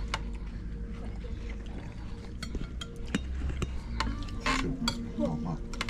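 Cutlery clinking and scraping on china plates as people eat, over a steady low room hum, with a short louder burst of noise about four and a half seconds in.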